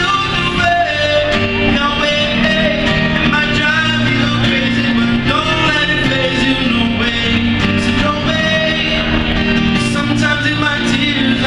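A man singing a melody over an acoustic guitar in a live acoustic performance.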